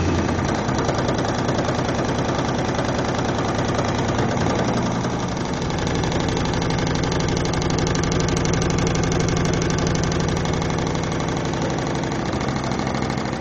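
A motor running steadily with a fast, even pulse; a low hum grows stronger about four seconds in and then holds.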